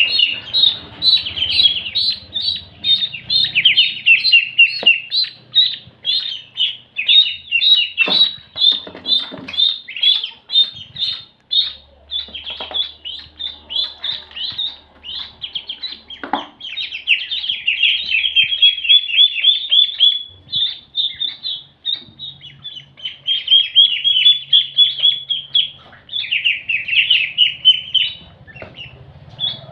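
A group of ducklings peeping continuously: rapid, high-pitched, repeated calls, several overlapping at once, easing off for a few moments now and then before picking up again.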